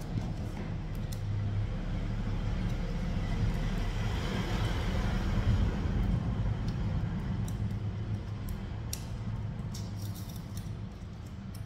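Low steady rumble with a hiss that swells to a peak about halfway through and then fades, and a few light clicks.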